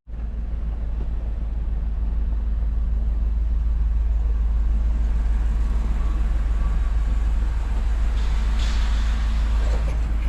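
A vehicle running with a steady low rumble.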